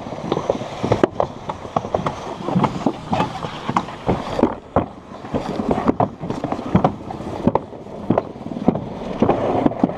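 Alpine slide sled running down its track: a steady rumble of the sled riding the trough, broken by frequent irregular knocks and clatters.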